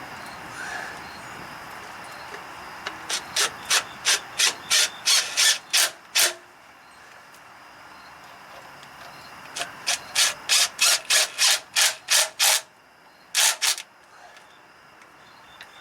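Hand ratchet wrench clicking through quick back-and-forth strokes, about three a second, running down a mounting bolt on a truck PTO hydraulic pump. It comes in two runs with a pause between, then two more strokes.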